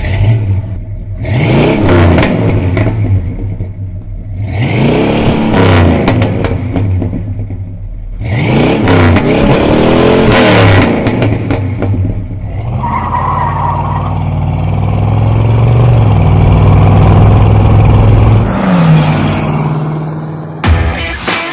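The 1972 Buick Riviera's 7.5-litre (455 cu in) V8 revving up and down several times, then running steadily with a higher, rising note near the end.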